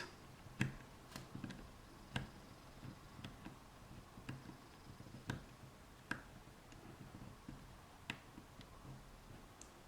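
Faint, irregular clicks from a combination padlock's number dials being turned by hand while a feeler gauge is held against the wheels to feel for the gate.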